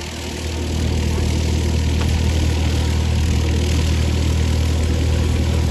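Steady engine drone, a strong low hum under a broad hiss, swelling slightly about a second in.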